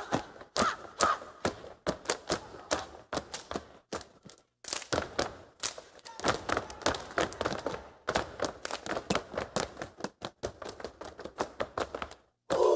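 A step team stomping and clapping in unison: a fast, syncopated run of sharp strikes, several a second, with a brief break about four and a half seconds in.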